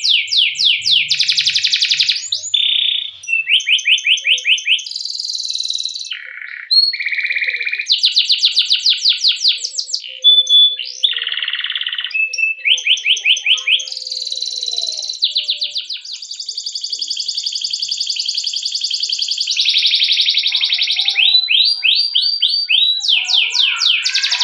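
Domestic canary singing continuously: fast trilled runs of one note repeated many times, switching to a new note every second or two, with long unbroken rolls, the longest lasting about three seconds past the middle.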